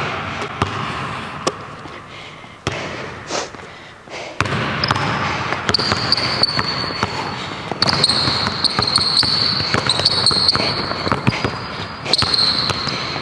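Basketball being dribbled on a hardwood gym floor, a series of sharp bounces, with high-pitched sneaker squeaks joining about halfway in as the players cut and defend.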